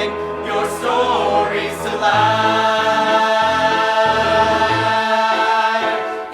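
The closing of a musical-theatre song: singing voices with accompaniment. From about two seconds in, it settles on a long held final chord over moving bass notes.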